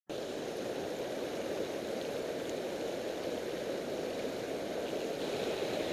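Steady rush of river water spilling over a low dam and running fast below it.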